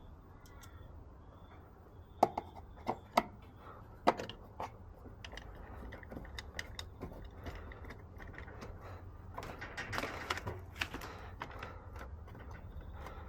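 Irregular sharp clicks and knocks, several close together between about two and five seconds in, over a low steady hum, with a short rustling stretch about ten seconds in.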